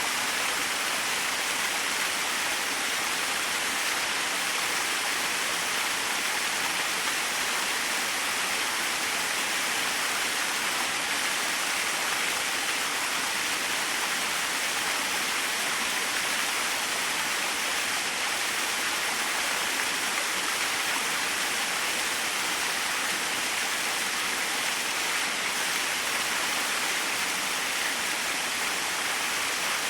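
Small waterfall: falling water splashing in a steady, even rush with no change in level.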